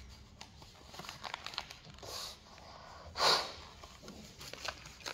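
Sheet of paper rustling and crinkling as hands fold it, with small scattered clicks and one louder brief whoosh about three seconds in.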